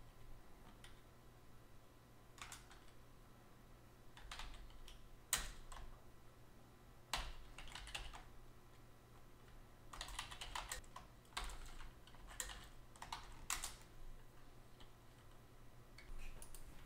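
Computer keyboard typing, faint, in short bursts of keystrokes separated by pauses of a second or more.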